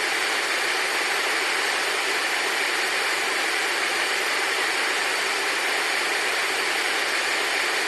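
Steady, even hiss like white noise or static, with no beeps or tones.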